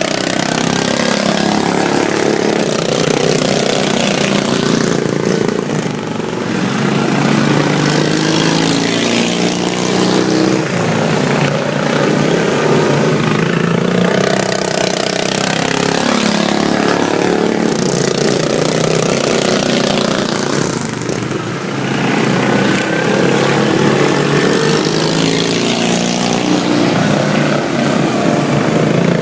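Several super stock racing lawn mowers running hard on a track, their engines rising and falling in pitch as they pass again and again.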